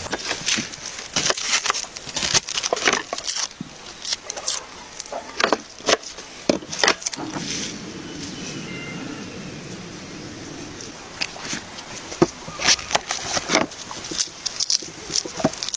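Close-miked food-prep sounds: a run of sharp clicks and knocks from carrots and a knife on a wooden board, a few seconds of quieter outdoor background in the middle, then the crackle of a garlic bulb's papery skin being peeled by hand near the end.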